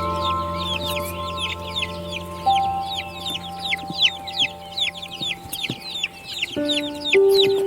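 A crowd of baby chicks peeping continuously, a rapid overlapping stream of short high peeps that each fall in pitch. Under them, soft background music of long held notes, with a low drone that fades out about two-thirds of the way through and new notes coming in near the end.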